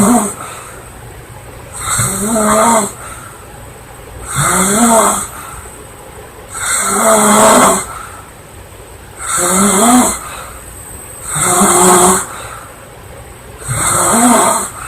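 A woman snoring loudly in her sleep, one rough snore about every two and a half seconds, each lasting about a second, with quieter breathing between.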